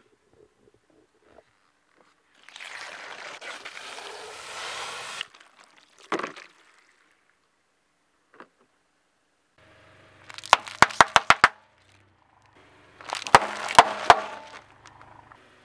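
Plastic soda bottles being crushed under a car tyre: a long hiss of escaping liquid and air, a single pop, then two quick runs of sharp plastic cracks and crunches.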